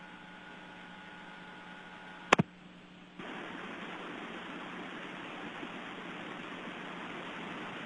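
Steady hiss of the station's space-to-ground audio feed, with faint hum tones under it. A sharp double click about two seconds in is followed by a jump to a louder hiss, as if the channel had been keyed or switched.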